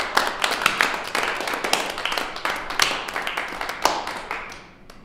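A small group applauding, many hands clapping irregularly, dying away near the end.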